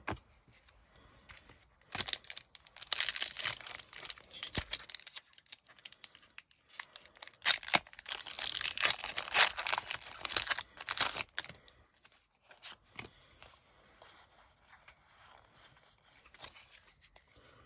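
A Pokémon TCG booster pack's foil wrapper being torn open and crinkled in two bouts of tearing, followed by fainter rustling.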